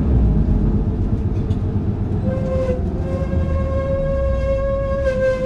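Low, steady engine rumble of a Hino Blue Ribbon KC-HU2PMCE diesel city bus. About two seconds in, a steady high, horn-like tone with overtones joins it and holds.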